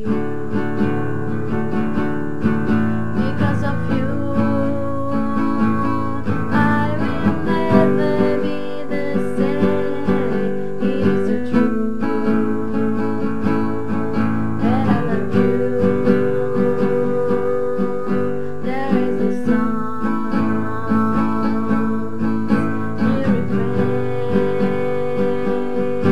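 Acoustic guitar strumming and picking an instrumental passage of a song.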